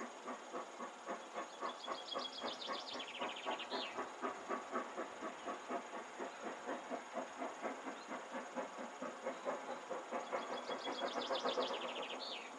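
Distant LMS Black 5 steam locomotive working a train, its two-cylinder exhaust beating steadily at about four to five beats a second and growing louder toward the end. A small bird twice sings a short trill that falls in pitch.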